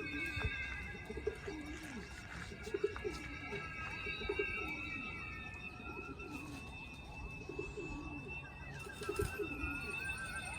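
Domestic pigeons cooing, with low falling calls repeated about once a second, over a thin steady high-pitched tone.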